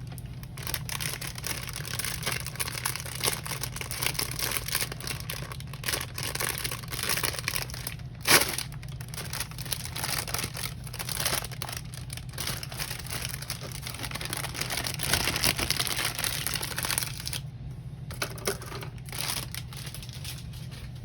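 Plastic bags crinkling and rustling as the runners of a Gunpla model kit are unwrapped, full of small crackles, with one sharp click about eight seconds in.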